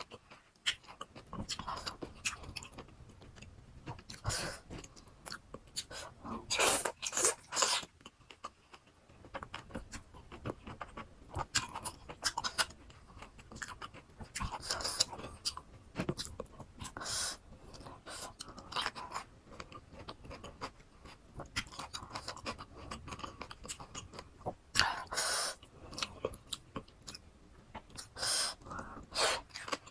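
A person chewing and crunching crisp raw fruit from a rujak, close to the microphone: irregular bites and crunches, the loudest about seven seconds in and again near the end.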